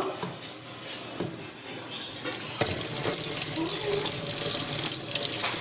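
Kitchen faucet turned on about two seconds in, then a steady stream of tap water splashing into a stainless steel sink over raw shrimp being rinsed by hand.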